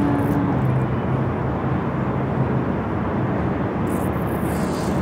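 Steady rumble of passing motor vehicles, with a brief high hiss near the end.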